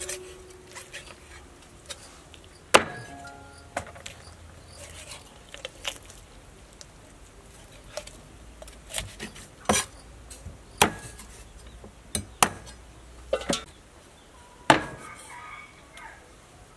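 Cleaver chopping through a raw chicken on a wooden chopping block: about ten sharp chops at irregular intervals, the loudest about three seconds in.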